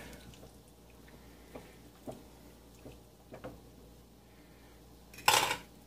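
Silicone spatula stirring thick pot pie filling in a cast iron skillet: a few soft taps and scrapes at irregular intervals, then a brief, louder burst of noise near the end.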